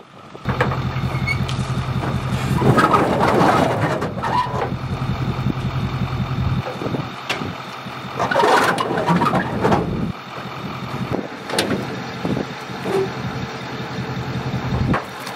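Pickup truck engine idling with a steady hum, while a small boat is shoved off its trailer into the water, its hull scraping on the trailer in two louder rasping bursts, about three and nine seconds in.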